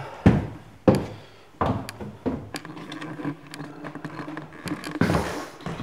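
Footsteps on a staircase, one heavy step about every two-thirds of a second, loud at first and then softer, with a brief rustle near the end.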